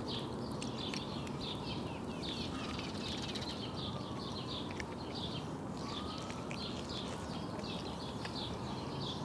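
A small songbird chirping over and over, about two short chirps a second, over a steady low background hum.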